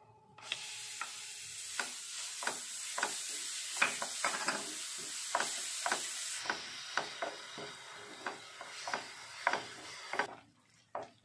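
Milk cream (malai) sizzling as it hits a hot pan of roasted sesame seeds, while a wooden spatula stirs it in, knocking and scraping against the pan at an irregular pace. The sizzle starts about half a second in and stops suddenly near the end.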